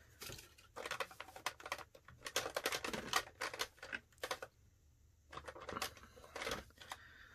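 Plastic blending marker pens clicking and clattering against each other in quick runs of taps as they are rummaged through and picked up, with a short pause in the middle.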